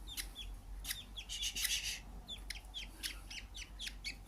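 Budgie chicks chirping: many short, high, quick chirps in rapid succession, with a brief harsher hissing rasp about a second and a half in.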